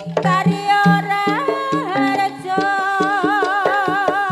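Live Javanese jaranan music: drums and struck percussion keep a quick, even beat under a high melody line. The melody slides up between notes at first, then, about halfway through, settles into long held notes with a wide vibrato.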